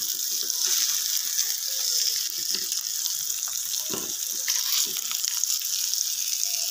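Onion slices, garlic cloves and tomato shallow-frying in a little oil in a metal pan, giving a steady sizzle. A metal spoon scrapes and taps the pan as the pieces are turned over to brown the other side, with the clearest knock about four seconds in.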